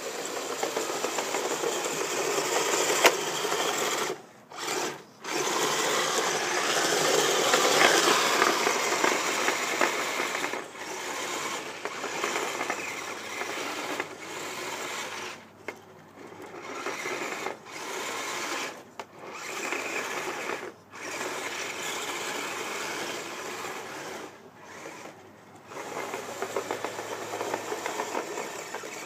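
Electric drive motors and gearboxes of radio-controlled tracked snow groomers whirring. The sound stops briefly about seven times and starts again as the models halt and move off.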